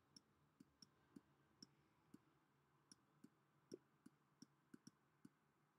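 Faint, irregular clicking of a stylus tapping a pen tablet while handwriting, about a dozen small clicks.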